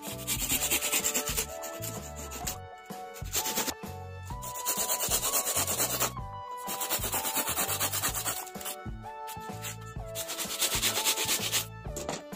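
Hand saw cutting through bamboo slats, fast back-and-forth strokes in several bursts of a second or two with short pauses between cuts, over background music.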